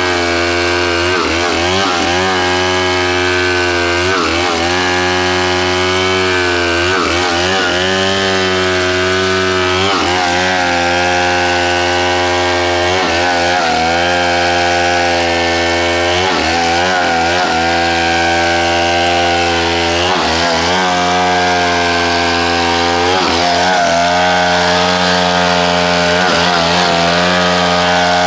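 Stihl MS070 two-stroke chainsaw running steadily while ripping a coconut log lengthwise into lumber. Its engine pitch dips briefly and recovers many times as the chain bites and the engine takes the load.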